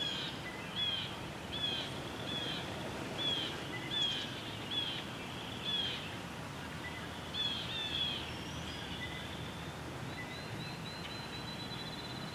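Songbirds calling: a string of short, high, down-slurred notes about once a second, then a quick trill of high notes near the end, over faint outdoor background noise.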